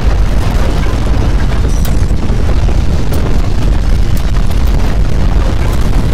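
Loud, steady low rumble of strong earthquake shaking, with faint scattered rattles on top.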